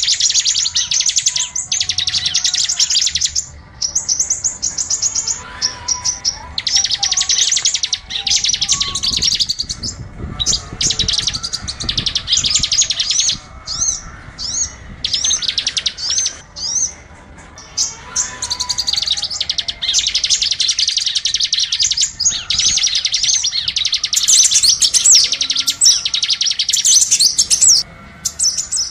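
Small songbirds chirping and trilling rapidly and high-pitched, in long dense runs broken by short pauses: a recorded lure call for attracting small birds.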